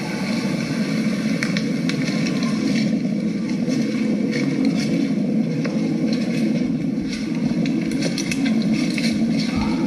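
Heavily boosted night recording from inside a camping hammock: a steady low rumbling hiss with scattered faint clicks and crackles, which the camper believes to be footsteps outside.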